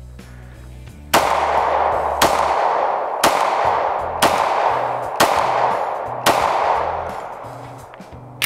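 Six pistol shots from a Glock, fired at an even pace about one a second, each followed by a long echo that fades out.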